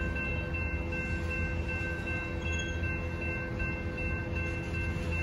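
Covered hopper cars of a freight train rolling through a grade crossing with a steady low rumble of wheels on rail. The crossing's warning bell rings continuously over it.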